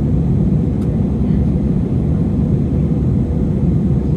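Steady low rumble of an airliner's jet engines and airflow, heard from inside the passenger cabin in flight.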